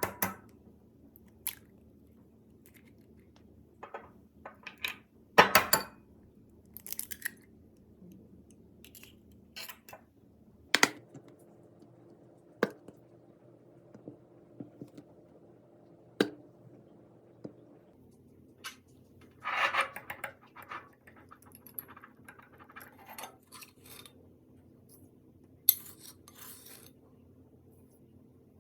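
Scattered taps and clinks of a bowl and kitchen utensils over a faint steady hum, with a denser clatter about twenty seconds in.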